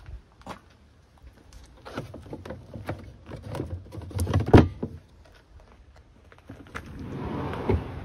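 Gear being put away in the wooden drawers of a van's fit-out: scattered knocks and clatter, loudest about four and a half seconds in, then a rustling, scraping swell near the end.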